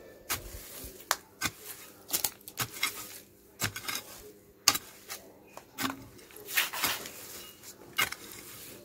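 Hand hoe with a metal blade chopping and scraping into dry, stony garden soil, breaking it up for sowing: irregular strikes, about two a second, with grit and small stones clinking against the blade.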